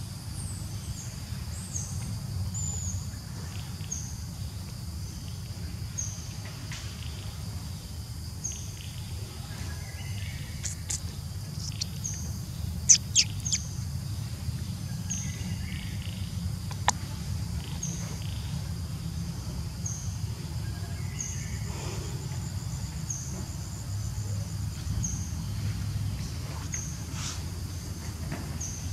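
Outdoor insect ambience: a steady high drone with a short high chirp repeating at a steady pace over a low steady rumble. A few sharp clicks come about halfway through.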